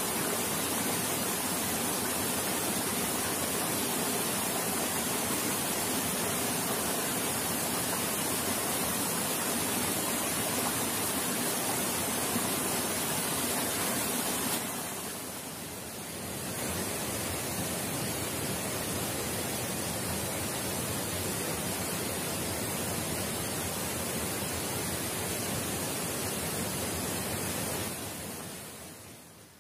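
Steady rushing of flowing water, a full, even hiss that dips briefly about halfway and fades away near the end.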